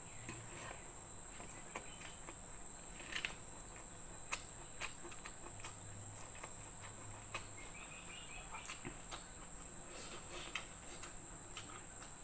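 Close-up eating sounds: scattered soft clicks and smacks of the mouth while chewing food, the sharpest about four seconds in, over a steady high-pitched whine in the background.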